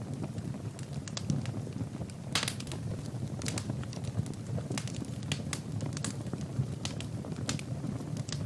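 Wood fire burning in a fireplace: a steady low rumble with frequent sharp crackles and pops at irregular intervals.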